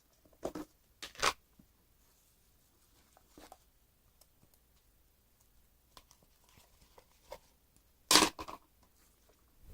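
Slime being handled with the hands, making a few short squishing, crackling sounds: two in the first second or so, a faint one about three and a half seconds in, and the loudest cluster about eight seconds in.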